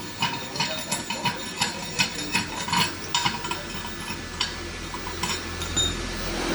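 Irregular sharp taps and clinks of hand tools, several a second, easing off after about five seconds, while a steady low hum comes in near the end.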